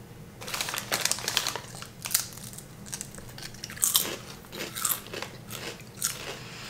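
Crunching of potato chips being bitten and chewed close to the microphone, with a series of sharp crunches starting about half a second in and more bites around four and five seconds.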